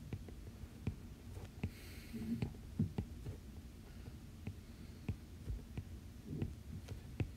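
Faint, irregular taps and low thumps of a stylus working on a tablet's glass screen, over a steady low hum.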